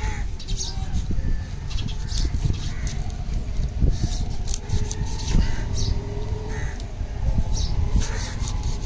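Outdoor fish-stall ambience with a steady low rumble, faint voices and bird calls, and a large knife being pushed down through a thick seer fish (surmai) steak, with a couple of short knocks about four and five seconds in.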